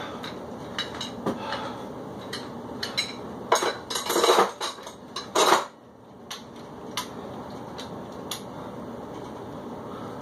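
Metal dumbbells being set down and handled: a run of clinks and knocks, with a louder clatter in the middle.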